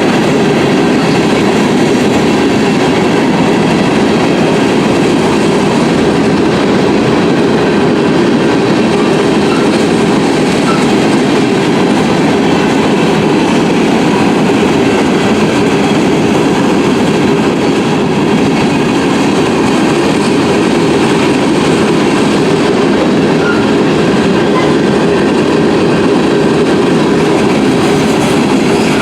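Union Pacific freight train rolling steadily through a road crossing: a continuous loud rumble and rattle of railcar wheels on the rails, with no horn.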